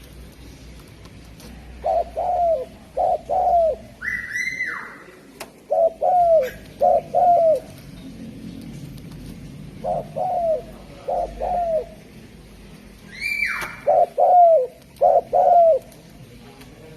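Spotted dove cooing: four phrases of short, low, repeated coos. Twice, about 4 and 13 seconds in, a louder high call slides steeply downward.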